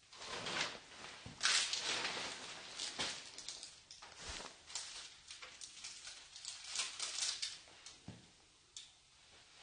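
Plastic sheeting rustling and crinkling in irregular bursts, with a soft low thump about four seconds in.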